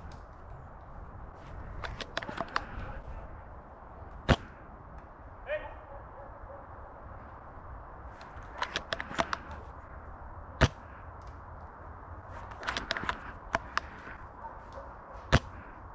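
Airsoft gunfire: three sharp single shots several seconds apart, and between them short bursts of rapid shots.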